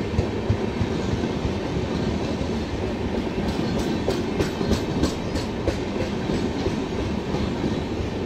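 Red air-conditioned LHB passenger coaches rolling slowly past on their steel wheels: a steady rumble of wheels on rail with clickety-clack, and a quick run of sharp clicks about halfway through.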